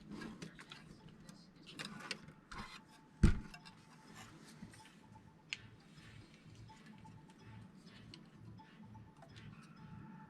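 Light clicks and taps of small parts and tools being handled, with one louder knock about three seconds in and a faint steady tone from about then on.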